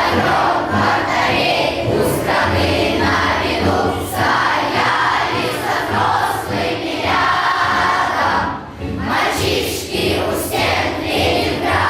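A group of voices singing a song together over a musical accompaniment.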